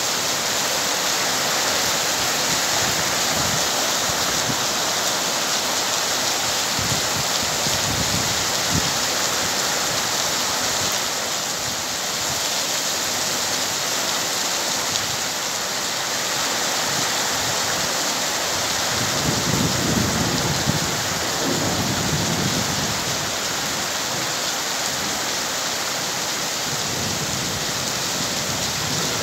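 Heavy rain falling steadily onto trees, shrubs and ground: an even, dense hiss of rain. A low rumble swells briefly about two-thirds of the way through.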